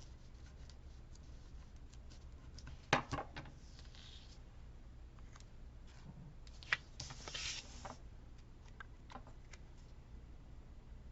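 Quiet handling of paper and washi tape at a craft table: a couple of sharp taps and short rustling, scraping stretches, over a low steady hum.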